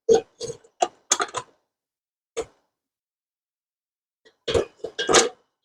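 Short knocks and clicks of metal tool parts being handled and fitted together, in quick clusters with a pause of about two seconds before a louder run near the end.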